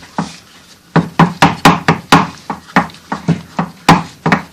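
A quick, uneven run of sharp knocks and clicks from hand tools working on a car's propeller shaft, several a second from about a second in.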